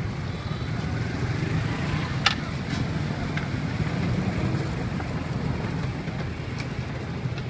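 Steady low background rumble, with one sharp click about two seconds in.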